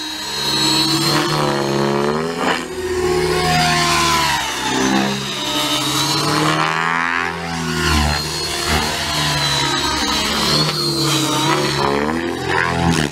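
Align T-Rex 600E radio-controlled helicopter flying aerobatics: the buzzing whine of its rotors and motor, with the pitch rising and falling again and again as it manoeuvres.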